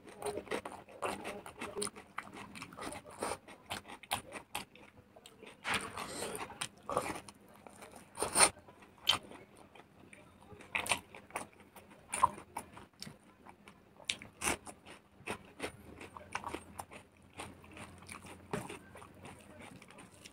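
Close-miked chewing and mouth sounds of a person eating smoked pork and rice by hand, a steady run of irregular short clicks and crackles.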